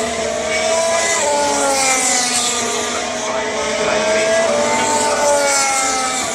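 Several racing car engines running on the circuit at once, their high engine notes overlapping and sliding down and up in pitch as the cars pass and shift gears.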